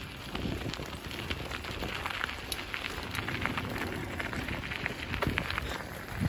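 Amtrak Wolverine passenger train passing close by: a steady rumble of the cars on the rails, thick with rapid small clicks and rattles from the wheels.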